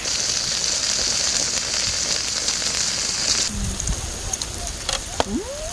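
Food sizzling hard on a hot camping grill plate, a dense hiss that cuts off suddenly about three and a half seconds in. A few low knocks follow, and near the end there is a short rising-and-falling vocal sound.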